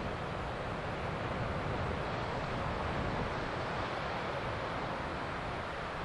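Atlantic Ocean surf breaking and washing onto a sandy beach, a steady rushing hiss with a low rumble of wind on the microphone.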